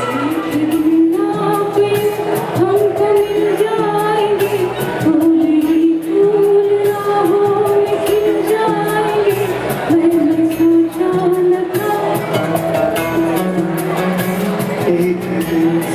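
A singer's melody over music played through the PA system, with long held notes that slide from pitch to pitch over percussion.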